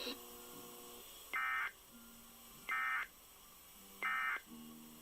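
Three short buzzing bursts of Emergency Alert System digital data over a NOAA Weather Radio broadcast, evenly spaced about a second and a quarter apart: the end-of-message code that closes a Required Weekly Test.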